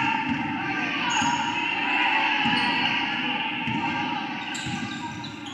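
Gym ambience during a girls' basketball game: a basketball bouncing on the court over steady crowd chatter, with a few short high squeaks.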